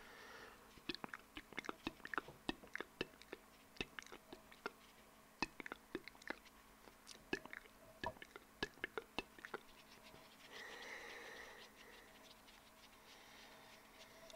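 Close-miked ASMR mouth sounds: quick, irregular wet clicks and pops of tongue and lips, several a second. From about ten seconds in, the clicks give way to soft breathy hissing.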